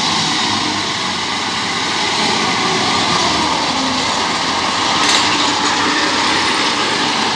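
Tracked crawler carrier driving over a dirt field track: its engine running steadily under the clatter of its tracks, with a brief click about five seconds in.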